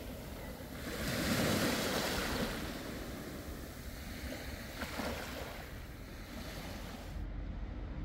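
Sea waves washing onto the shore: one large wave surges and breaks about a second in, a smaller one about five seconds in. Near the end the hiss of the surf cuts off abruptly, leaving a low rumble.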